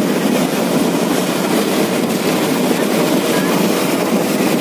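A bus driving along the road, heard from on board: a steady mix of engine and road noise with no let-up.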